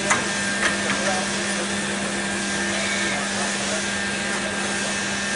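CNC pipe bending machine running with a steady mechanical hum, with a few sharp clicks in the first second or so.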